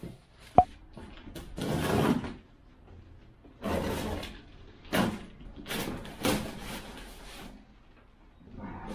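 Cardboard shipping boxes being handled and lifted off a stack: several short bursts of cardboard scraping and rustling, with a sharp click just after the start.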